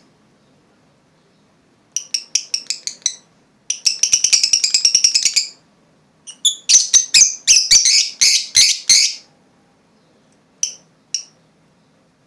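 Lovebirds chirping in rapid, high-pitched runs: a quick series of chirps, then a fast trill, then a longer series of loud chirps, with two short single chirps near the end.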